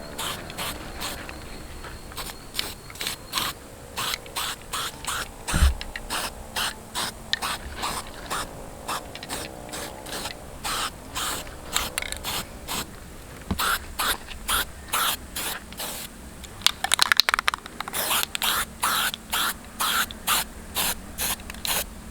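Aerosol paint can being shaken, its mixing ball rattling in short, even strokes about twice a second, with a louder flurry of strokes about three-quarters of the way through.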